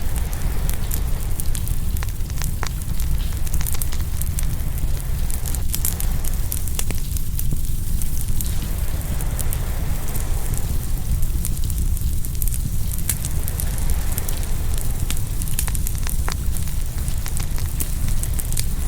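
Open wood fire crackling and popping in many sharp irregular snaps, over a steady low rumble and a hiss of ocean surf that swells and ebbs every few seconds.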